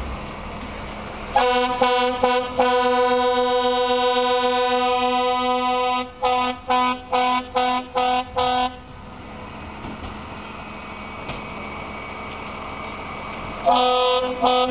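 Fire engine air horn sounding: a few short blasts, one long blast of about three seconds, then about six quick blasts, and two more short blasts near the end. The blasts are a warning to move a vehicle parked beside a fire hydrant.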